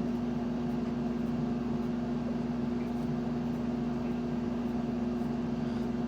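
A steady machine hum with one strong low tone, holding even throughout.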